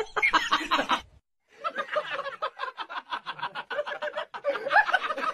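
A person's voice for about a second, a brief break, then a person laughing in quick, evenly repeated pulses, about five or six a second.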